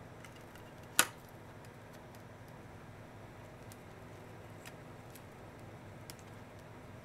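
Soaked ladyfingers and clear plastic dessert cups being handled on a tray: one sharp plastic click about a second in, then a few faint ticks, over a low steady room hum.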